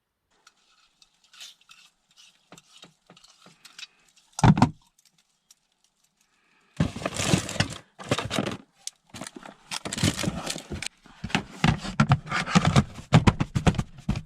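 Irregular rattling and scraping of handled objects, with a single loud knock a little over four seconds in and a dense run of clattering through the second half.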